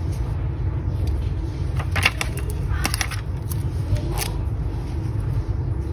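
A few light clicks and rustles of fingers handling a small paper sticker on a spiral notebook page, about two and four seconds in, over a steady low hum.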